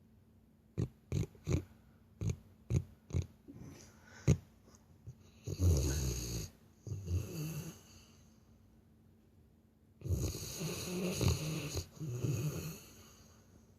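A sleeping Labrador retriever snoring like a person: a run of short sharp snorts in the first few seconds, then a pair of long snores around the middle and another pair from about ten seconds in.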